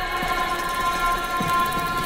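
Sustained electronic drone from a sound-art composition: many steady tones held together as one dense chord, with a bright ringing tone on top and faint scattered clicks beneath.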